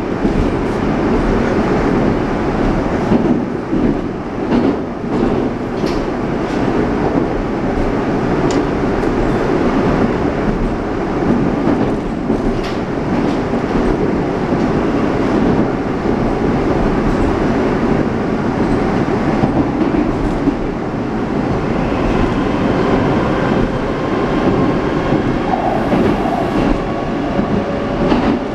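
Moscow Metro 81-740/741 'Rusich' train running between stations, heard from inside the car: a steady rumble with scattered clicks of the wheels over the rails. About three-quarters of the way through, a few thin steady tones join the rumble.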